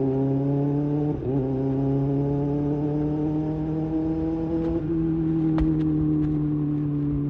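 Kawasaki Ninja ZX-6R inline-four engine running through an IXIL slip-on exhaust, its pitch climbing slowly and steadily with a short break about a second in, then levelling off. A few light clicks come near the end.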